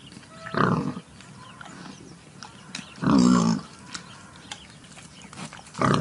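Wild boar grunting three times, the middle grunt the longest and loudest.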